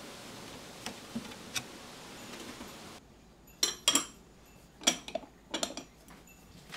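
Sharp clinks and knocks of a pour-over coffee dripper being handled and set on its stand, several in quick succession in the second half. Before that, only a few faint taps over a quiet hiss.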